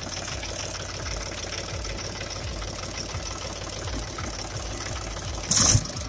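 Three-cylinder diesel engine of a Mahindra 275 TU tractor idling steadily, restarted after a diesel filter change and bleeding air from the fuel system. A short, loud noisy burst comes about five and a half seconds in.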